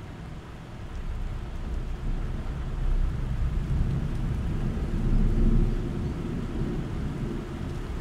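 Rolling thunder from a close lightning strike: a low rumble that swells about three seconds in and again around five seconds in, then slowly dies down.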